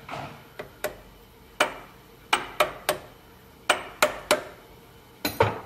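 A mallet striking the handle of a spanner wrench hooked on a Bridgeport mill's quill nose piece: about a dozen sharp knocks, several in quick runs of three, driving the right-hand-threaded nose piece loose.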